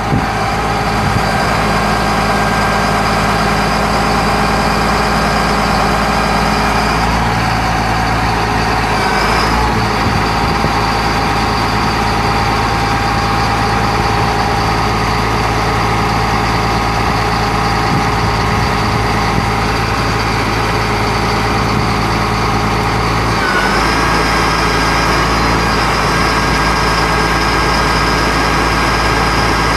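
Caterpillar 3126 inline-six turbo diesel of a Sterling L9000 truck running steadily while driving the IMT knuckle-boom crane's hydraulics through the PTO, with a steady whine over the engine. The engine's low note gets stronger about seven seconds in and drops back a little after twenty-three seconds.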